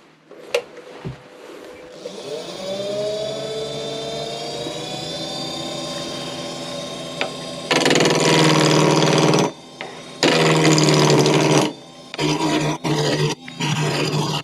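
Wood lathe motor spinning up and running with a steady whine, then a turning tool cutting into the spinning wood in loud spells of a second or two, shorter and choppier near the end.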